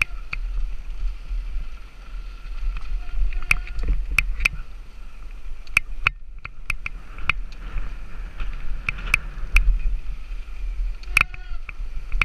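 Mountain bike ridden fast down a rough dirt trail: a steady low wind-and-terrain rumble on the mount-mounted camera with frequent sharp clicks and rattles from the bike over bumps and rocks. A faint steady high whir runs underneath and drops out briefly about six seconds in.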